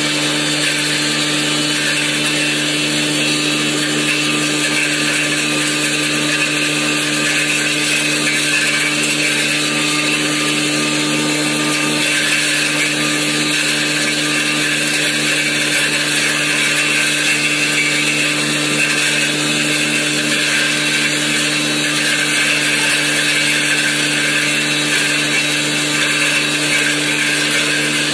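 Electric turmeric grinding machine running steadily while it grinds dried turmeric: a continuous motor hum under a dense, even grinding noise.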